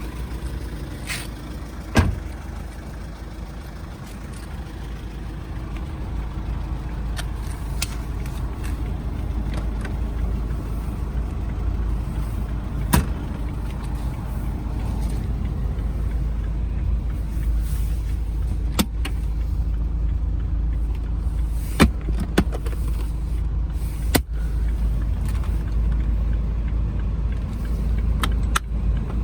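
Steady low rumble of a running car, with several sharp clicks and knocks over it.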